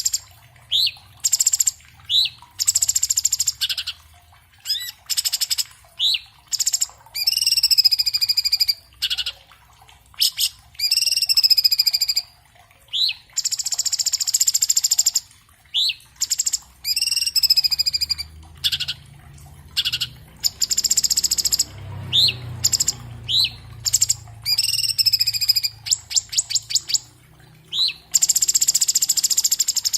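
Orange-bellied leafbird (cucak cungkok) singing a fast, varied song in short, quickly repeated phrases: sharp rising whistled notes alternating with dense buzzy trills and sweeping slurred notes.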